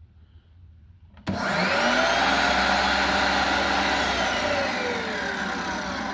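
Craftsman 19.2-volt cordless miter saw switched on about a second in: the motor and blade spin up with a rising whine and run at full speed, then from about four seconds in the motor is let go and the blade winds down with a falling whine.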